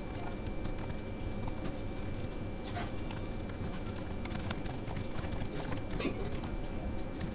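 Typing on a computer keyboard: scattered, irregular key clicks over a steady background hum.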